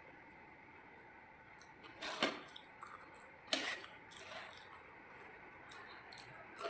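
Close-up eating sounds of watered rice: wet squishes and mouth smacks, with two louder ones about two and three and a half seconds in and small clicks after.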